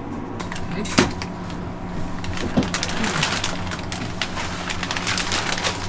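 Ceiling vent register being taken down and handled, with a sharp click about a second in and crinkling of a black plastic trash bag as chewed insulation is pulled into it, over a steady hum.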